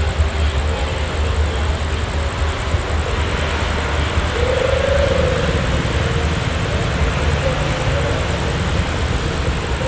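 Diesel-electric locomotive running steadily with a deep, continuous rumble, a faint whine in it swelling briefly about halfway through.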